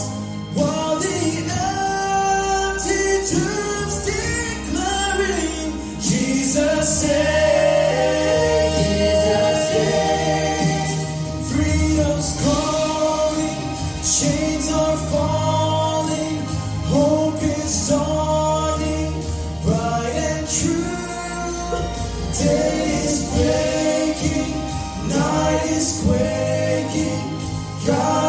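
A mixed group of male and female singers performing a gospel song into microphones, several voices together.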